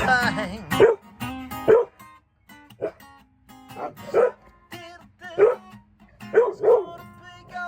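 Puppies barking and yipping in short calls, about eight times, over acoustic guitar notes that ring under the first couple of seconds.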